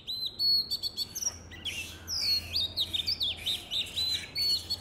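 Birds chirping in quick succession: many short, high notes, some overlapping, over a faint steady low hum.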